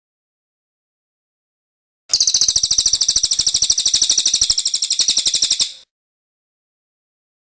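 A songbird's rapid, high-pitched chattering trill, lasting about three and a half seconds and starting about two seconds in, with dead silence before and after it.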